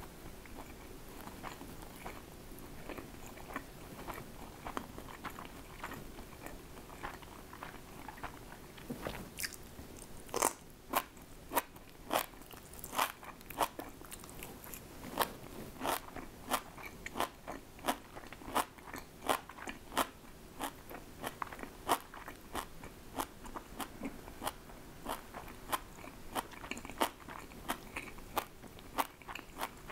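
A person chewing crunchy food close to the microphone: soft chewing at first, then from about ten seconds in, sharp crisp crunches about once or twice a second.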